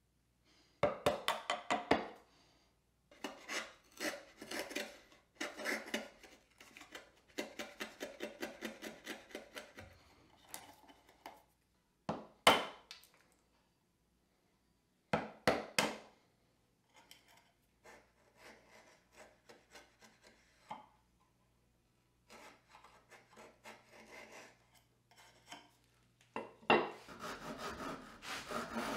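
Hand tools working a piece of wood in several short bursts of quick scraping strokes, with a couple of sharp knocks in between. Near the end a Japanese saw starts cutting with steady back-and-forth strokes.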